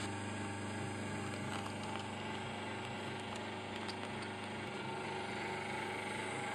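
Plasma arc welding machine running on a longitudinal seam: a steady electrical hum, with a faint tone that slowly rises in pitch from about two seconds in.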